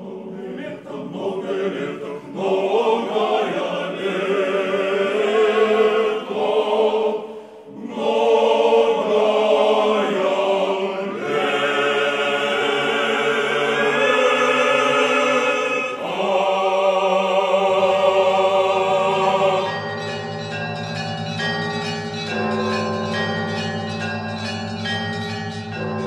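Choir singing in several voices. About twenty seconds in, the singing gives way to church bells ringing in a quick repeating peal.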